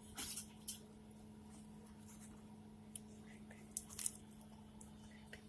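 Faint handling noise: a few light clicks and rustles of small parts being moved, over a steady low hum.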